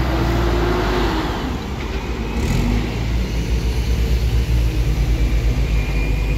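Steady low rumble of a vehicle engine running nearby, with a faint hum that rises over the first second and then drops away.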